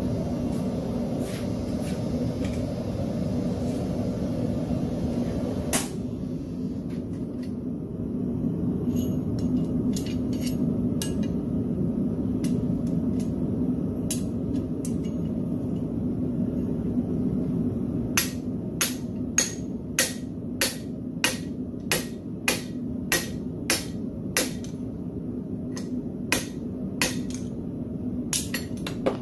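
Hand hammer striking a drift held in tongs, driving it through the hot split railroad spike on the anvil: a run of ringing steel-on-steel blows, nearly two a second, starting a little past halfway, after a few scattered lighter taps. A steady low roar runs underneath.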